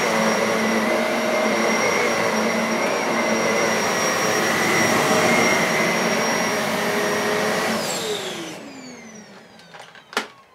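AEG Electrolux Nimble bagless upright vacuum cleaner running on carpet with its brush roll on: a steady motor whine. About eight seconds in it is switched off and the motor winds down, its pitch falling away, followed by a single sharp click near the end.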